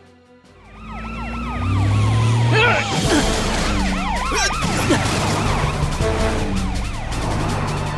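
Cartoon emergency-vehicle sirens, several overlapping wails rising and falling in pitch, over background music. They swell in from quiet during the first couple of seconds.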